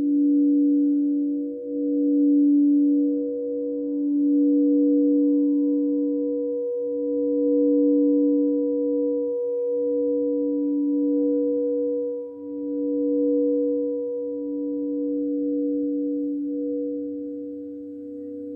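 Frosted crystal singing bowls sounding a sustained, steady tone as mallets are circled around their rims; two pitches sound together, the sound swelling and easing every couple of seconds.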